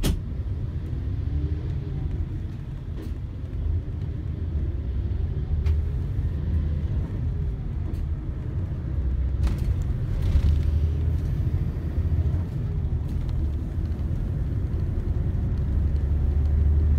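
Road vehicle heard from inside its cabin: a steady low engine and road rumble, with engine tones rising in pitch several times as it picks up speed, and a few faint clicks.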